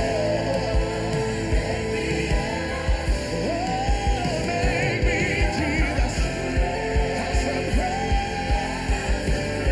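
Live worship band: voices singing over drums, guitars and keyboards, with a steady kick-drum beat.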